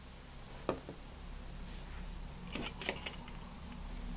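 Faint handling sounds of crochet: a few light clicks and taps as yarn is pulled through and a crochet hook is set down on a tabletop, over a low steady hum.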